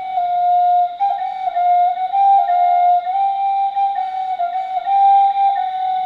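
Native American flute playing a slow melody of long held notes that step between neighbouring pitches.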